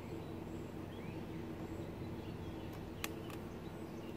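A small screwdriver starting a screw in the Marchant calculator's metal frame, with a single sharp click about three seconds in and a few fainter ticks, over a steady low hum and faint bird chirps.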